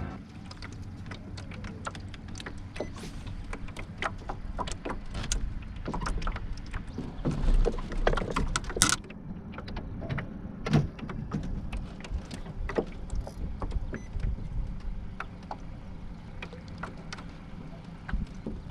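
Scattered clicks and knocks of fishing gear being handled and feet shifting on a small jon boat's deck, over a steady low rumble; the sharpest knock comes about nine seconds in.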